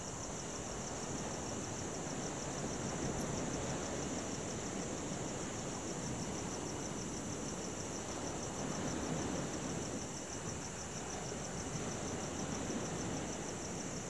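Crickets chirping in a rapid, steady high pulse over the low, continuous wash of ocean waves that swells gently now and then.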